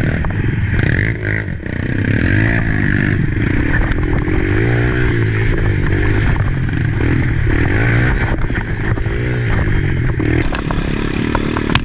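Racing ATV's single-cylinder engine heard up close from the handlebars as the quad is ridden along a tight, rough woodland trail, the revs rising and falling over and over as the throttle is worked. The throttle eases off briefly about a second and a half in.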